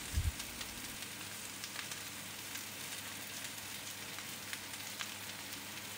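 Vegetables sizzling gently in hot oil in a frying pan as shredded cabbage and sliced bell peppers are tipped in: a faint, even hiss with scattered small crackles. A soft low knock comes just at the start.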